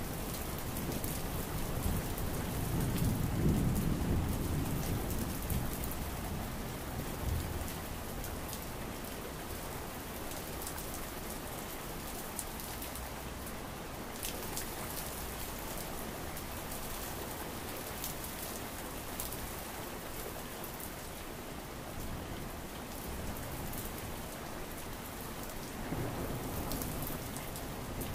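Steady rain, with many small drop clicks and a louder low rumble about three seconds in.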